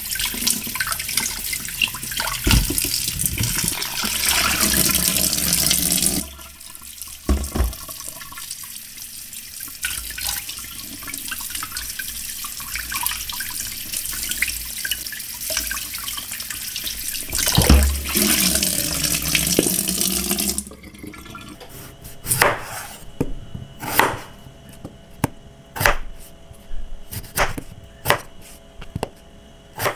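Kitchen tap running onto hands rubbing potatoes clean, then quieter splashing as they are rinsed in a bowl of water, and the tap running again. After about 21 seconds, a chef's knife cuts through raw potato with a sharp knock on a wooden chopping board every second or two.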